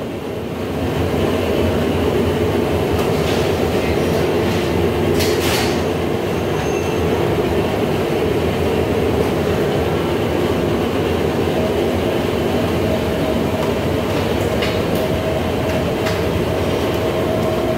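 Steady loud mechanical hum and rush of a commercial kitchen's running equipment and ventilation, with a couple of brief metallic clinks around three and five seconds in.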